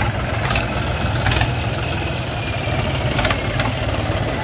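Diesel tractor engines running at low speed as the tractors drive slowly past, a steady low rumble. A few short hisses sound over it.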